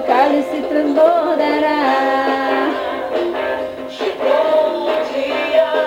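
Music with a singer's voice, a song playing back with almost no bass, dipping briefly about four seconds in.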